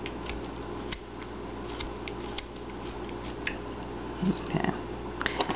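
Small carving knife slicing shavings from a wooden cone figure: a scattering of faint, crisp little cuts over a low steady hum.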